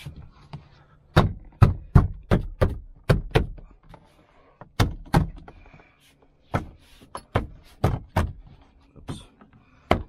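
Hands knocking and pressing a plastic interior trim panel into place so its retaining clips snap in: a series of sharp knocks in quick irregular groups.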